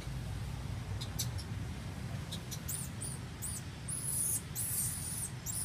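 Infant macaque crying in a run of very high-pitched squeaks. The first few are short and thin, and the last two, about four seconds in, are longer drawn-out squeals that rise and fall.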